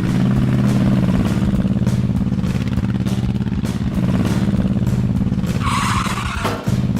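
A vehicle engine running steadily with a low, fast-pulsing hum. A loud hiss cuts in near the end.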